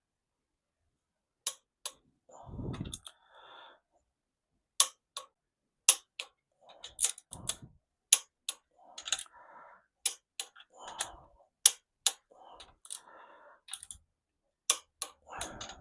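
A socket wrench ratcheting in short, irregular runs of sharp clicks, with handling noise between them, as the crankshaft main bearing cap bolts are run down and tightened from the middle outward.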